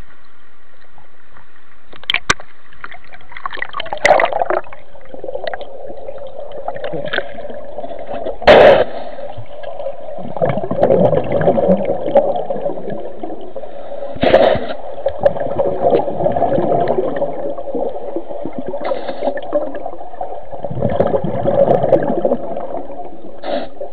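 Flowing canal water gurgling and churning, heard muffled through a phone microphone held underwater, with several sharp knocks against the phone, the loudest about eight and a half seconds in.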